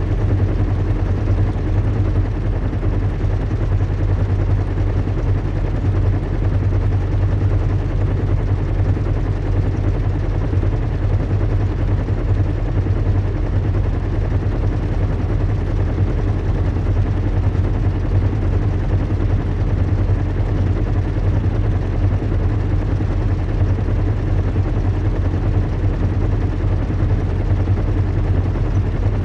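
Recreated ambience of a zeppelin airship in flight: a steady low rumble and hum with an even rushing noise above it, unchanging throughout.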